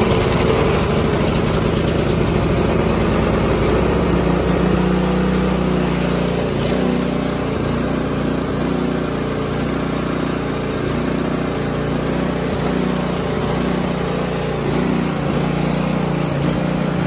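The 5.25 hp Briggs & Stratton engine of a Snapper SS5022 snowblower running on choke just after a cold start. Its speed wavers a little from about four seconds in.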